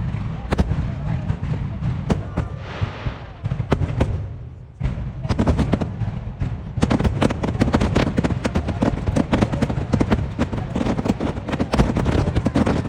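Fireworks shells bursting in quick succession, sped up to double speed. After a short lull a few seconds in, the bangs crowd into a dense barrage from about the middle on, then break off sharply at the end.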